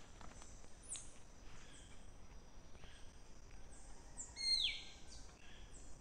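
Wild birds calling in the trees: a string of short, high, falling chirps, with one louder, longer falling call about four and a half seconds in.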